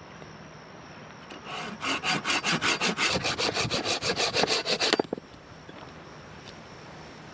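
Hand saw cutting through wood with quick back-and-forth strokes, about six a second, starting about a second and a half in and stopping abruptly about five seconds in.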